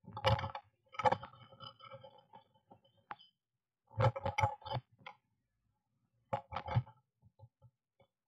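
Blue tit moving about inside a wooden nest box: scrabbling claws, knocks against the wooden walls and brief wing flutters, in several short clusters with gaps between.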